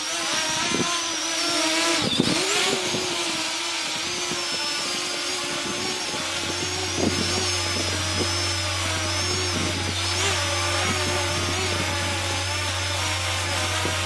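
Parrot Anafi quadcopter's propellers whining as it flies close by, a steady multi-toned buzz whose pitch wavers slightly up and down as it manoeuvres.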